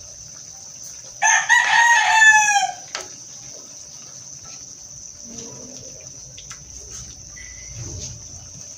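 A rooster crowing once, about a second in, one call of about a second and a half that falls in pitch at the end, over a faint steady high hiss.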